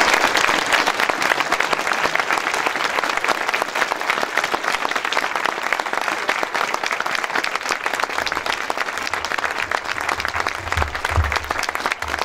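An audience applauding with dense, sustained clapping. It is loudest at the start and slowly tapers off.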